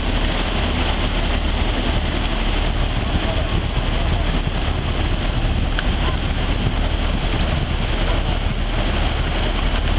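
Car ferry's diesel engines running under way with a steady low hum, its propellers churning the water as it pulls away from the quay.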